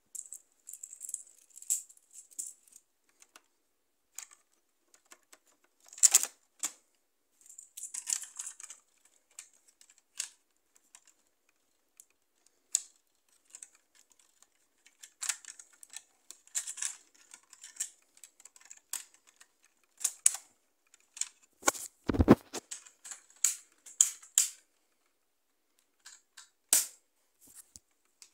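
Lego plastic parts of a brick-built belt-fed machine gun clicking and rattling as the model and its ammunition belt are handled, in irregular bursts of small clicks. One heavier thump comes about two-thirds of the way through.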